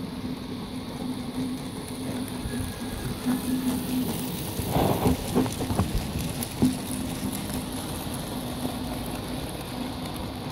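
Model goods train running past on the layout: the wagon wheels rattle and click over the rail joints, loudest about five to seven seconds in as the wagons pass close, over a steady low hum.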